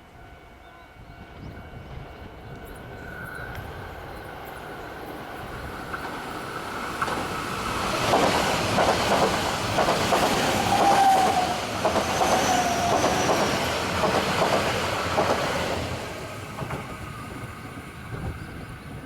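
A train passing close by: its wheels click over the rail joints in quick succession, building over several seconds, loudest for about eight seconds in the middle, then fading. A thin wheel squeal sounds briefly near the loudest part.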